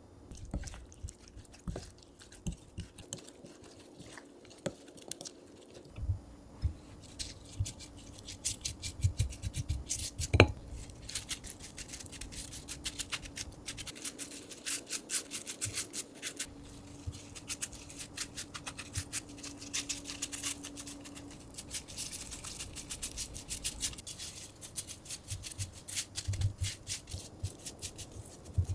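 Wooden spoon working thick chili seasoning in a ceramic bowl and spreading it over perilla leaves, with gloved hands handling and stacking the leaves: a long run of small wet scrapes, clicks and rustles. There is one sharp knock about ten seconds in.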